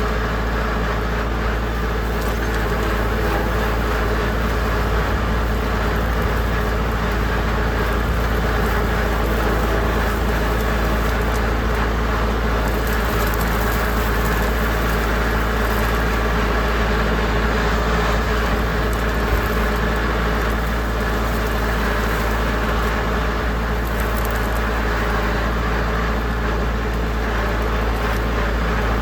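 Farm tractor engine running steadily at working speed while pulling a no-till drill through standing weeds, the pitch and level holding even throughout.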